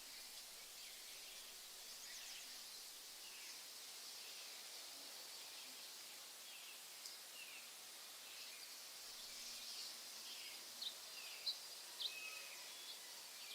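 Faint nature ambience: small birds chirping in short falling notes over a steady high hiss, with a few louder, sharp chirps near the end.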